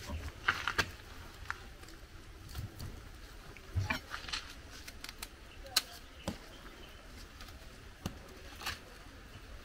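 Scattered clicks, knocks and short scrapes as green plantains are peeled by hand with a kitchen knife on a wooden cutting board: the knife is set down and picked up, a peeled plantain is laid on the board, and the knife slits the next peel.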